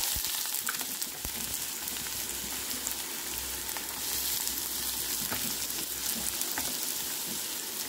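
Chopped onion frying in hot coconut oil in a non-stick pan: a steady sizzle, with a few faint ticks as more pieces are dropped in by hand.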